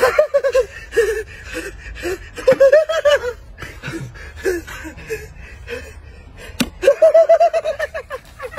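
Several men laughing in bursts of quick repeated 'ha-ha' pulses, with the longest burst near the end. There is a single sharp smack about two-thirds of the way in.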